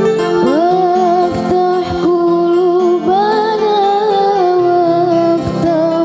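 A woman singing a sholawat in modern qasidah koplo style, her voice coming in about half a second in with long, ornamented held notes over instrumental backing.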